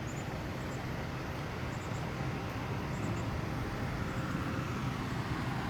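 Road traffic: a steady rumble of passing cars that grows slightly louder.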